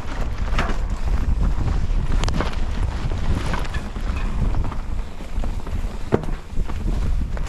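Wind buffeting a GoPro microphone on a moving mountain bike, over a steady low rumble of riding on the trail, with a few sharp knocks from the bike.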